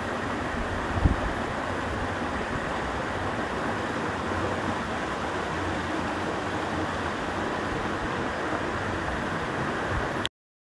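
Steady rush of stream water flowing over rocks, with one low thump about a second in; it cuts off abruptly just before the end.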